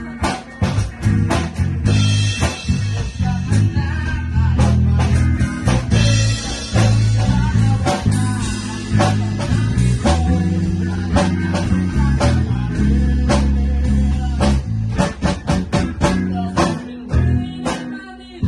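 A band rehearsing a song: guitar over a heavy low end and a steady beat of sharp hits, with a brighter splash about two seconds in and again around eight seconds.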